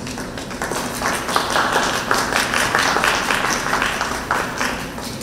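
Audience applauding: a short round of clapping that builds up about a second in and dies away near the end.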